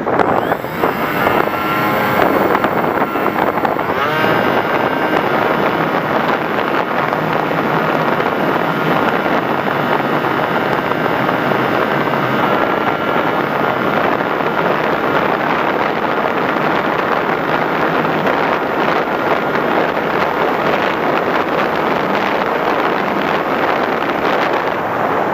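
Motor and propeller of an FPV Raptor model plane in flight, heard from on board with steady wind rush. The motor's pitch shifts several times in the first few seconds, then holds steady.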